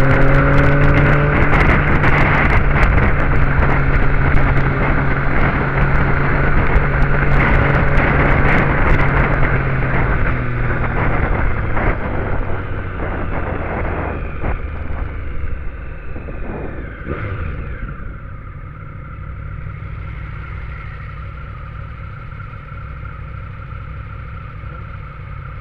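Motorcycle engine pulling at a steady pitch under heavy wind rush on the microphone, then easing off as the bike slows. Over the last several seconds it settles into a quieter, steady idle.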